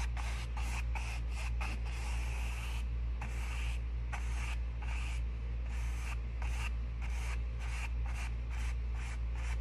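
Paintbrush swept back and forth across a canvas coated in wet paint, a quick run of scratchy swishing strokes, two or three a second, over a steady low hum.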